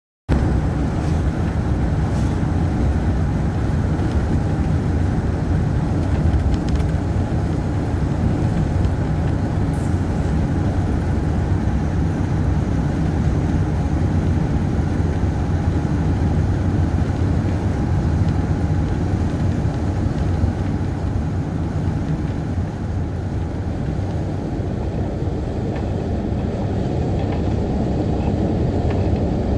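Steady low rumble of a car driving at road speed: engine and tyre noise heard from inside the moving car.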